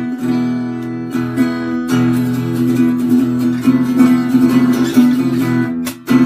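Acoustic guitar being played: a strummed tune over a steady, held low note, with a brief break near the end.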